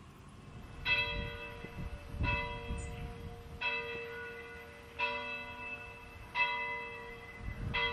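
A church bell tolling, struck six times at an even pace of about one stroke every second and a half, each stroke ringing on and fading.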